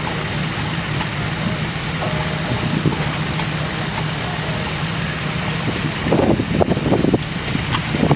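Fowler steam ploughing engine running with a steady low hum, and a short run of louder uneven knocks about six seconds in.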